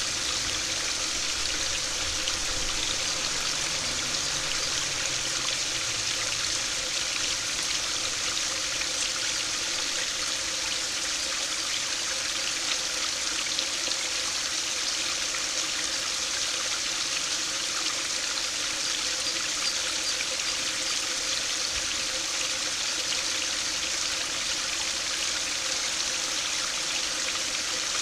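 A small brook spilling in a narrow stream over a low concrete weir and splashing into the shallow pool below, steady and unchanging.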